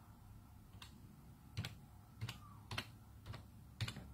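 Computer keyboard keys pressed one at a time, about six separate, unhurried keystrokes as a word is typed.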